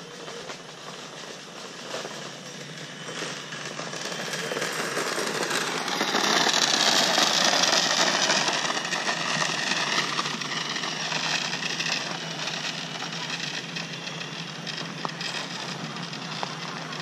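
Small electric kick scooter ridden past: a motor whine with tyres rolling on asphalt that swells as it comes close, loudest about seven seconds in, then fades.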